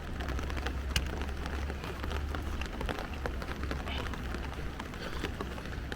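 Steady rain, with many separate drops striking close to the microphone over a low, steady rumble, and one sharper drop or tap about a second in.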